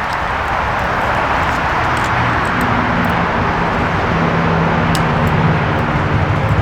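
Steady rushing noise, with the low hum of a motor vehicle's engine coming in about two seconds in and holding on.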